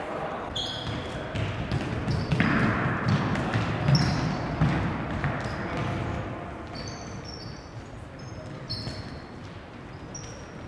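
Indoor futsal play in a large hall: sneakers squeaking on the wooden floor and the ball thudding off feet and floor. The squeaks come thickest in the second half.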